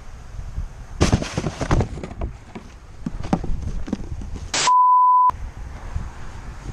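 A cluster of sharp cracks and knocks about a second in, then scattered knocks. Later a single steady 1 kHz bleep tone lasts about half a second, with the other sound cut out beneath it, like a censor bleep.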